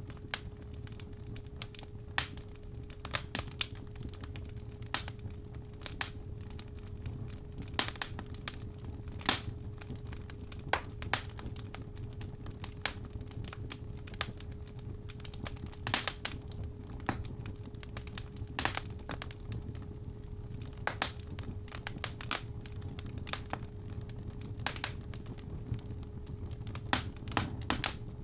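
Fireplace fire crackling and popping irregularly over a steady low rumble, with a steady 417 Hz sine tone running underneath.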